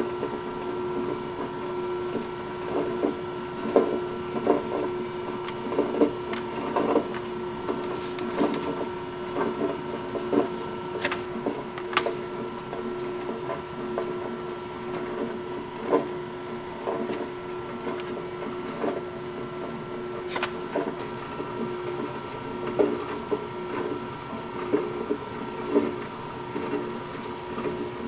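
Electric pasta extruder running with a steady motor hum as it pushes out fresh spaghettini, with scattered light knocks and clicks.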